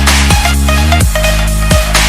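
Electronic dance music with a heavy bass line that drops sharply in pitch, over a steady beat.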